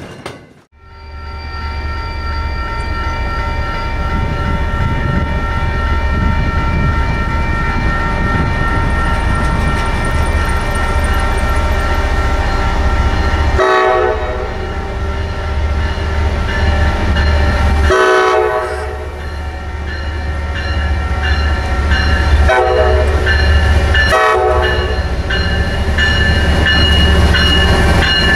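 MBTA commuter-rail diesel locomotive, an MPI HSP46, approaching and passing a road grade crossing. Its engine rumbles steadily, and its air horn sounds in several blasts, about 14, 18, 22 and 24 seconds in, over crossing bells ringing throughout.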